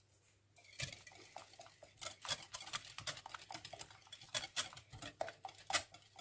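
Wire whisk beating egg and sugar in a glass bowl, the wires clicking rapidly against the glass, starting about a second in.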